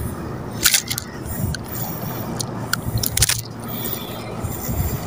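Handling noise of fishing tackle close to the microphone: a few short scrapes and clicks from the spinning reel and lure being moved, over a steady low rumble.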